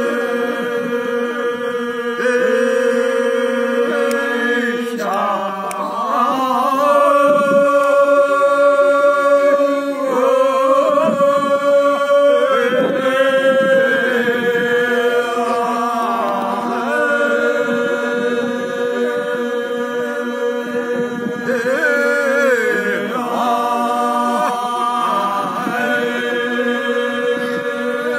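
Dogri bhaakh folk singing: a group of men chanting long, drawn-out notes without instruments, each note held for several seconds before the voices glide to a new pitch.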